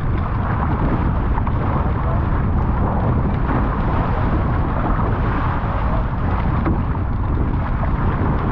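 Strong wind buffeting an action camera's microphone, mixed with water rushing past the hulls of a Hobie 16 catamaran sailing fast. A steady, dense roar.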